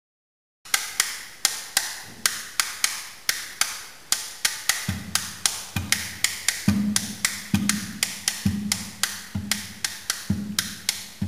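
Two classical guitars tapped on their wooden bodies in a rhythmic percussive pattern, sharp wooden taps about two to three a second, starting just under a second in. About halfway through, deeper knocks with a low ringing pitch join the taps.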